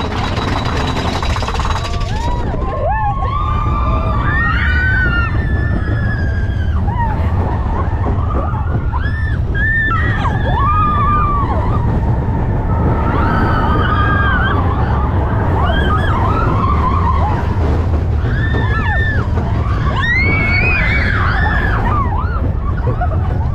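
Riders on a mine-train roller coaster screaming and whooping, many rising-and-falling cries overlapping from a couple of seconds in, over the steady low rumble of the coaster train and the wind of the ride.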